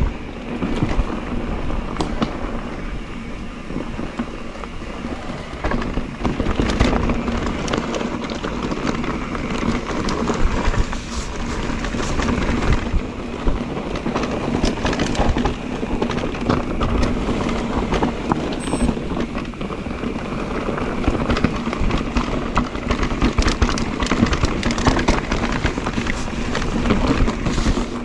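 Mondraker Crafty electric mountain bike ridden over rough trail: a continuous clatter of many small knocks and clicks from tyres, chain and suspension over rocks, over a steady low hum.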